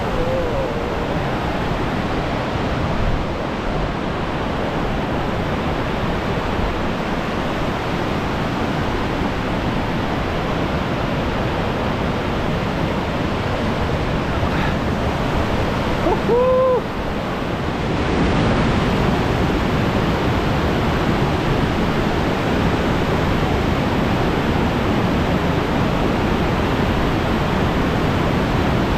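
Steady rushing of a waterfall, a little louder from about two-thirds of the way in, with one short rising-and-falling call about halfway through.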